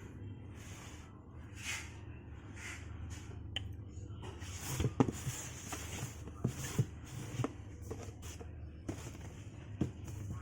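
Rustling and a few sharp clicks and knocks as packaging is handled during an unboxing, the loudest knock about halfway through, over a steady low hum.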